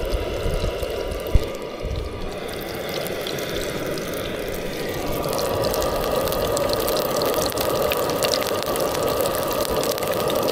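Yabby tails frying in hot oil in a pan on a portable gas stove: a steady sizzle with fine crackling that grows a little fuller about halfway through, with wind rumbling on the microphone underneath.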